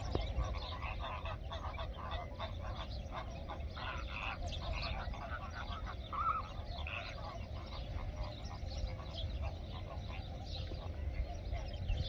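A flock of flamingos calling: a steady chatter of many short calls, one of them louder about six seconds in, over a steady low rumble.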